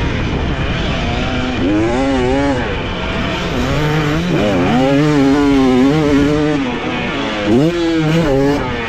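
Dirt bike engine revving as it is ridden on a motocross track, the engine note climbing and falling several times.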